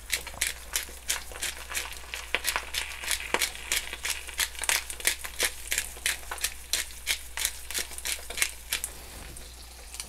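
Eggs frying in a pan: irregular crackles and pops, several a second, that thin out near the end.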